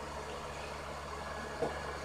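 Electric fan running steadily with a low hum, with one faint tap about one and a half seconds in.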